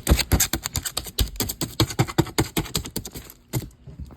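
Rapid, irregular clicking and knocking, several sharp taps a second, from a cardboard shipping box and its packing being opened by hand; it thins out near the end.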